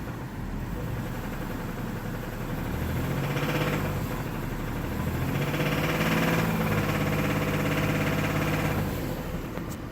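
BMW E46 M3's S54 3.2-litre inline-six running with a knock that the title calls rod knock. It idles, is revved briefly about three seconds in, then held at raised revs for about four seconds before dropping back to idle.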